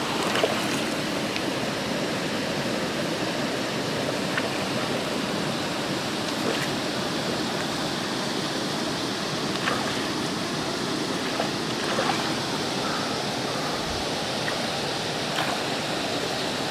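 Water running steadily with an even rush, as of a stream or inflow at a trout pond, with a few faint ticks now and then.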